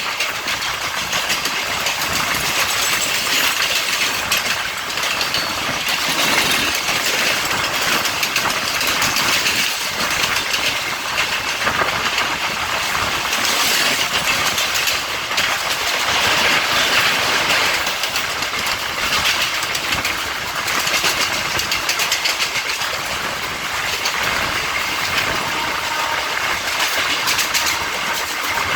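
Electric multiple unit local train running at speed: a steady, loud noise of wheels on the track.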